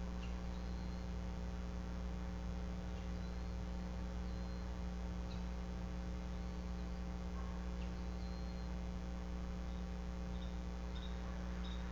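Steady electrical mains hum on the nest camera's audio, with faint, scattered high chirps and a short run of repeated high chirps near the end.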